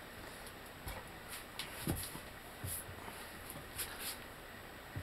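A few scattered light clicks and knocks of hand tools working a bolt-type bushing press as it draws a rubber control-arm bushing into a VW Mk4 front control arm.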